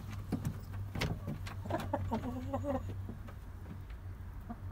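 Hens clucking and murmuring in short wavering calls as they crowd into a wooden coop, with a few sharp knocks near the start and a steady low hum underneath.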